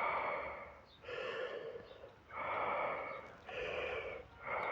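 A person breathing heavily in and out into the microphone, one breath about every second, each a breathy puff with no voice.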